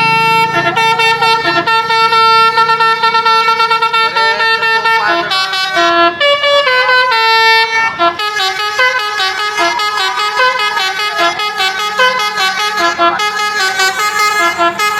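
Bus's multi-tone 'telolet basuri' musical air horn playing a tune: a long held note for about five seconds, then shorter notes stepping up and down, quickening about eight seconds in.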